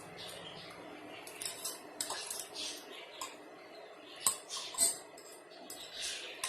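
Cutlery clinking and scraping against a bowl of noodles during eating: a run of short clicks and scrapes, with the two loudest a little after four seconds and near five seconds.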